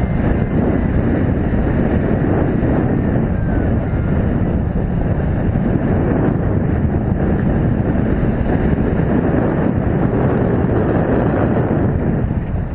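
Steady loud rumble of airflow buffeting the microphone of a camera mounted on a hang glider in flight.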